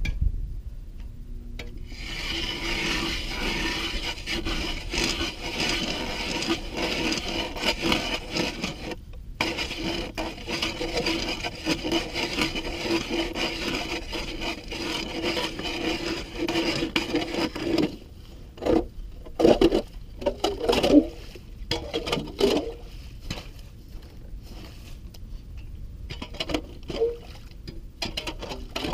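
Hand-cranked ice auger boring through lake ice: a steady grinding rasp as the steel blades cut, lasting about sixteen seconds with one short break. It then gives way to short, irregular scrapes and knocks.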